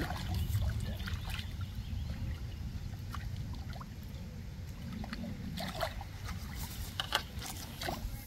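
Water splashing and dripping in short, irregular bursts over a steady low rumble.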